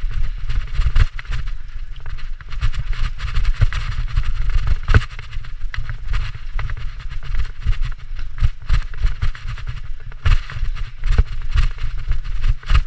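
Mountain bike riding fast down a dirt singletrack: tyres running over dirt and leaves and the bike rattling and knocking over bumps, many short clicks, over a constant low rumble.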